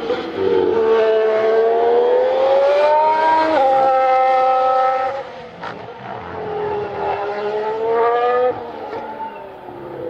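2019 Ferrari Formula 1 car's 1.6-litre turbocharged V6 under hard acceleration, its pitch climbing and then stepping down at an upshift about three and a half seconds in. Later the pitch climbs again and cuts off suddenly as the car lifts.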